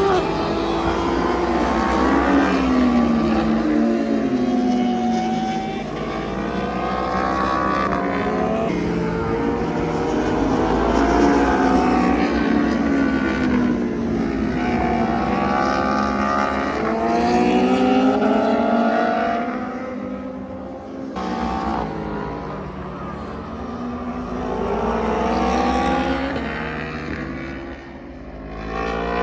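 2020 Yamaha R1's crossplane inline-four engine at racing speed, revving up through the gears and dropping back again and again, its pitch climbing and falling every few seconds.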